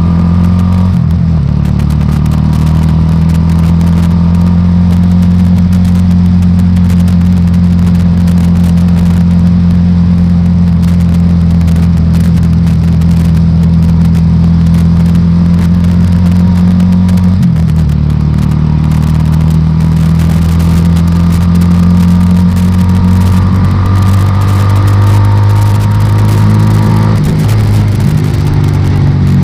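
Motorcycle engine running steadily under way, heard from a tank-mounted camera. There is a brief dip in the engine note about halfway through and a slow rise in pitch near the end.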